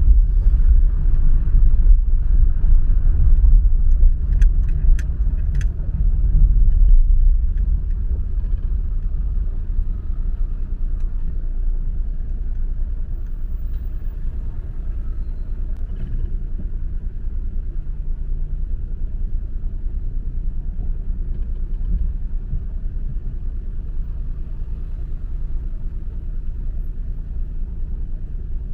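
A car driving on city streets: a steady low engine and road rumble, louder for the first seven seconds or so and then quieter as the car moves slowly in traffic. A few short clicks about four to six seconds in.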